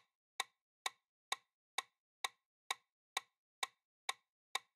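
Quiz countdown timer sound effect: a clock ticking, about two crisp ticks a second.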